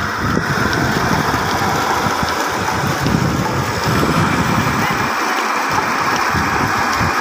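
Steady rushing of water pouring from a solar tubewell's discharge pipe into an irrigation channel, pumped by a 15 hp motor, with a continuous low rumble.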